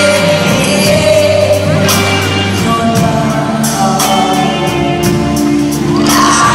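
Live pop-rock band playing on an amplified concert sound system: a male lead vocal sung into a microphone over acoustic and electric guitars.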